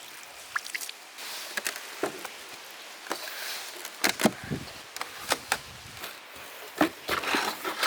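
Hands kneading soft maida flour dough: irregular sticky pats and slaps of the dough being pressed and turned.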